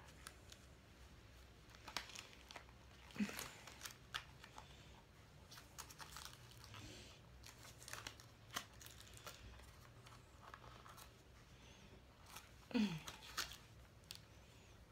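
A sealed package being worked and torn open by hand: scattered crinkles, crackles and ticks, louder for a moment about three seconds in and again near the end.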